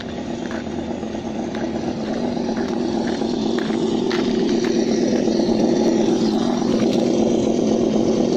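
Simulated engine idle from a Sense ESS One Plus sound module playing through the speaker on a Losi Baja Rey RC truck, steady and growing louder over the first few seconds.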